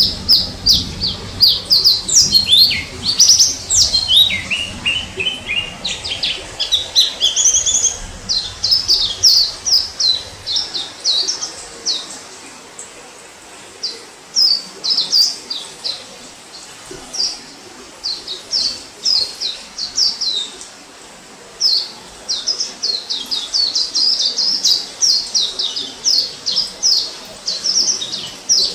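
White-eye (pleci) singing: rapid runs of short, high-pitched chirps and twitters, dense at first, sparser and softer for a while in the middle, then dense again.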